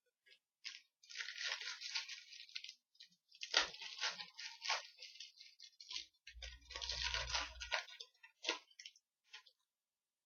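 Trading cards and their foil pack wrapper being handled: crinkling and rustling in irregular bursts, with a short low rumble about six seconds in.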